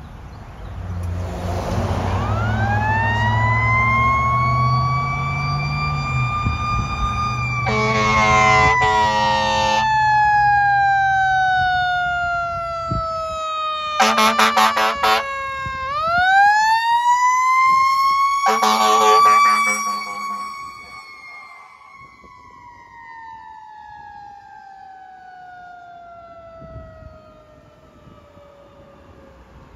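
Fire engine's mechanical siren winding up to a high wail and slowly coasting down, wound up again partway through, with three blasts of its air horns as it passes. The truck's diesel engine rumbles underneath in the first half.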